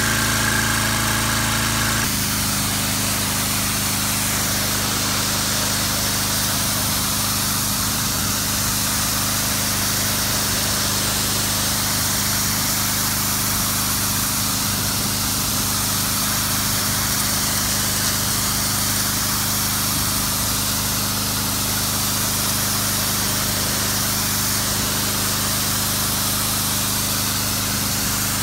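Generac 2500 PSI pressure washer's 6-horsepower gas engine running steadily, with the high-pressure jet from the wand hissing against concrete.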